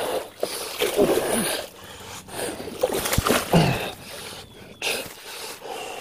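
A hooked bass thrashing and splashing at the surface while the angler lets out short grunts, with a few sharp knocks from handling the rod and dock.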